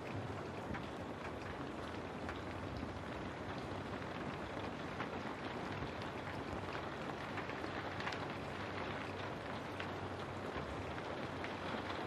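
Steady rain: a continuous even hiss with many small drop ticks scattered through it.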